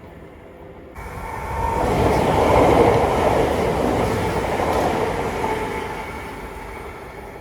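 A train passing at speed: the rumble of wheels on the rails builds quickly about a second in, peaks in the middle, then fades away as the train recedes.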